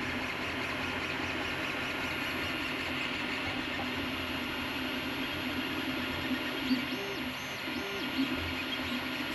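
3D printer running: a steady whirring hiss, with a few short stepped motor tones about two-thirds of the way in.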